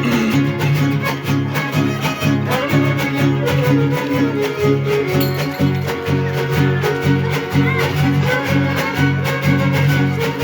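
Huasteco string trio playing an instrumental son: a violin melody over steadily strummed jarana and huapanguera chords.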